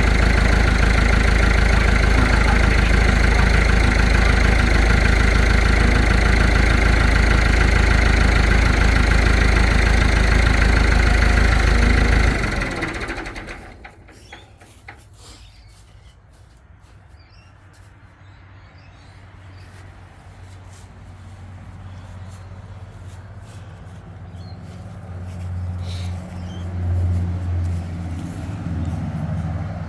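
Kubota U55-4 excavator's diesel engine running steadily, then shut off about twelve seconds in, dying away within about a second. Afterwards a low engine rumble slowly grows louder toward the end.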